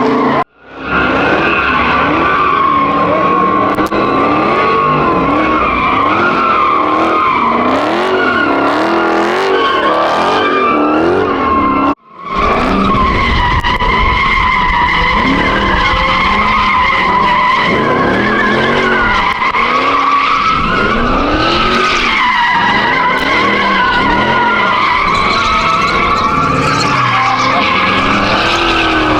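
A car spinning donuts: a continuous tire squeal wavering around one pitch, with the engine revving up and down over and over beneath it. The sound cuts out abruptly twice, just after the start and about twelve seconds in.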